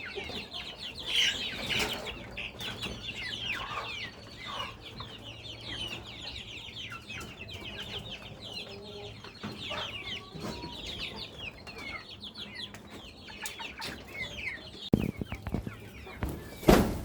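A large flock of chickens calling all at once: a dense chorus of short, high, falling peeps, over a low steady hum. A couple of loud knocks come near the end.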